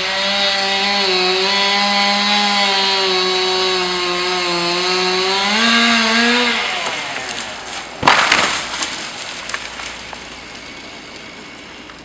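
Chainsaw running at a steady high speed for about six seconds, rising slightly just before it stops. About a second later there is a sudden loud crash with crackling that dies away over a couple of seconds.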